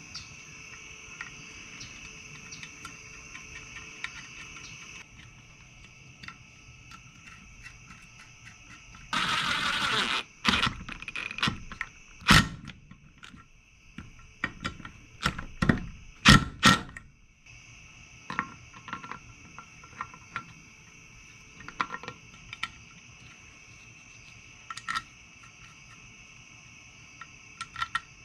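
Clinks and knocks of metal engine parts being handled on a workbench during reassembly, loudest in a cluster between about ten and seventeen seconds in, with a hiss lasting about a second just before them. Crickets chirr steadily in the background.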